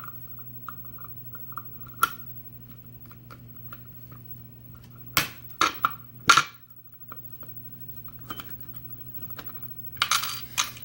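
Camera stand being lowered and adjusted by hand: scattered sharp clicks and knocks, a few louder ones around the middle and a cluster of rattling near the end, over a steady low electrical hum.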